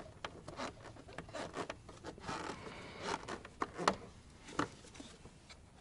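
Irregular small clicks, scrapes and rubbing from hand work on an ATV headlight: a T25 Torx driver turning a stiff low-beam adjuster in the plastic housing.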